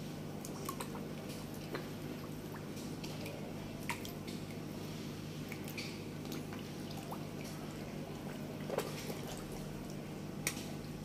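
Koi crowding at the pond surface: scattered small splashes and drips of water as the fish break the surface, with a few sharper splashes, over a steady low hum.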